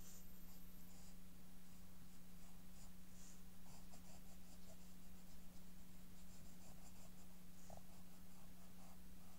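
Graphite pencil scratching on paper in runs of short, quick sketching strokes. A steady low hum runs underneath.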